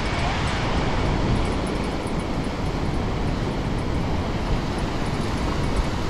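Steady roar of heavy current rushing out through dam spillway gates and churning into whitewater below.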